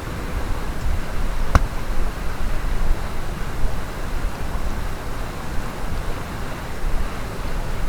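Steady rushing of a mountain stream, with a single sharp click about a second and a half in.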